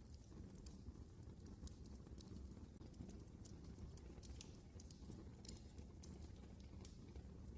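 Fire in a fireplace crackling faintly: irregular sharp ticks and pops over a low steady rumble of the flames.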